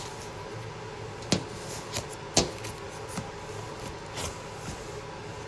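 A handful of light, sharp taps and clicks, about five spread over a few seconds, over a steady low hiss with a faint hum.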